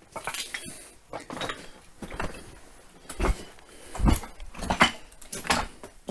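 Footsteps crunching over loose broken rock and rubble, an irregular step every half second to a second, with stones shifting and clinking underfoot.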